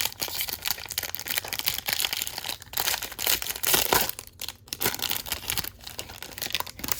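Foil wrapper of a baseball card pack crinkling and tearing as it is opened by hand.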